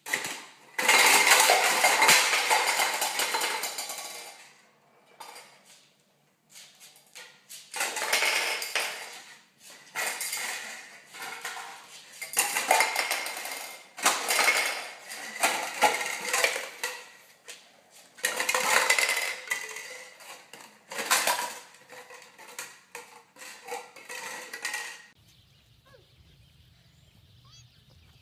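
Hollow plastic cups clattering and tumbling as a cockatoo knocks down a stacked cup pyramid. The clatter comes in about six separate bursts and stops about three seconds before the end, leaving only faint background noise.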